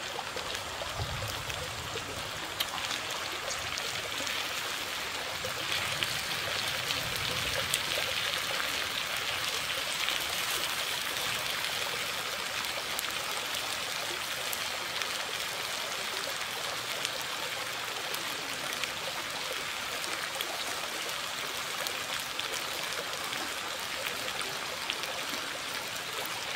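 Stream water flowing, a steady rushing babble, with occasional faint clicks.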